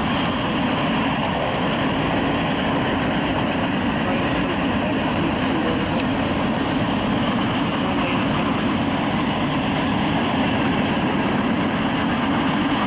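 A passing train rumbling steadily without a break.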